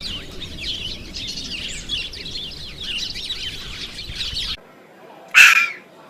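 Many small birds chirping at once, a dense overlapping chatter of short high calls, which cuts off abruptly after about four and a half seconds. Near the end there is one loud, short animal call.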